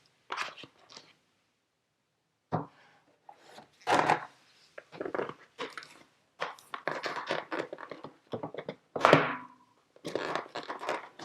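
Cardboard box and packaging being handled as its contents are pulled out: irregular rustling, scraping and tapping, with a few louder knocks.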